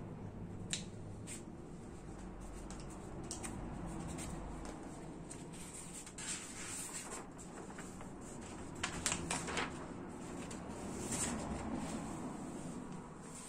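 Sheets of paper rustling as they are handled and laid out on a mat, with scattered small clicks from handling a marker pen and a small wire basket.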